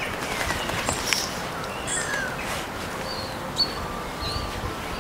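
Small birds chirping, many short high calls one after another, over a steady outdoor hiss. A sharp click sounds about three and a half seconds in.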